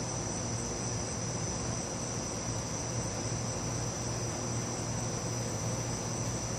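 Insect chorus, a steady high-pitched trill, over a constant low hum.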